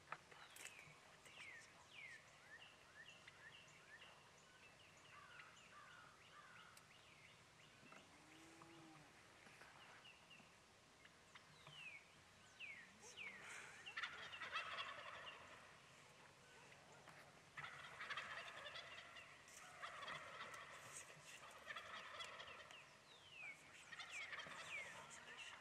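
Faint wild turkey gobbling several times in the second half, each gobble a quick rattling burst, among scattered songbird chirps.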